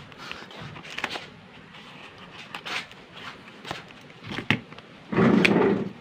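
Scissors snipping through a paper parcel mailer, with the paper and packing crackling and rustling in short bursts; near the end a louder rustle of about a second as the packaging is pulled apart.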